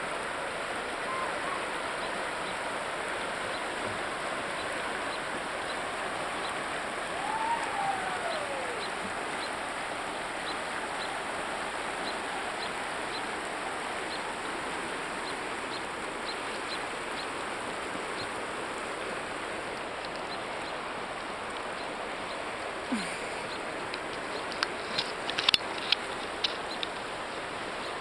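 River water rushing and rippling around a kayak in a steady wash, with a brief falling call about eight seconds in and a few sharp knocks near the end.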